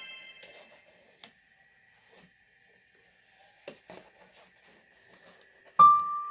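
Background piano music: a high chime fades away at the start, then a few seconds of near quiet with a few faint clicks, and the piano comes back in with a single held note near the end, followed by more notes.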